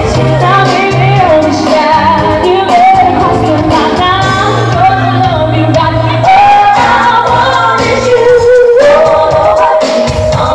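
A girl singing a pop song over a loud pop backing track with a steady bass line.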